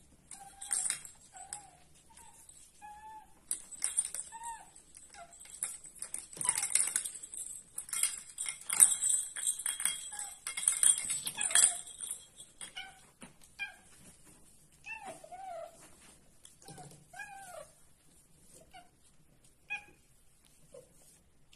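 Cat meowing over and over in short, high calls that rise and fall, with scattered clicks and a high hiss in the first half.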